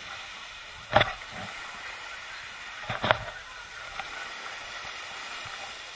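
Steady hiss of sea surf and wind, with faint distant voices, broken twice by a short, loud burst of noise about two seconds apart.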